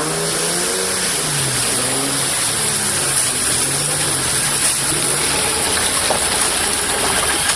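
Truck engine running while being driven, its pitch rising and falling with the revs, over a steady rushing hiss of wind and road noise.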